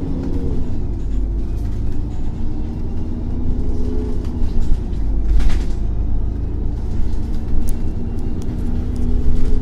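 Iveco Cursor 8 natural-gas engine of an Irisbus Cityclass CNG city bus running with a deep rumble, its pitch dropping about half a second in and shifting again later. Scattered knocks and a short burst of noise about five seconds in come over it.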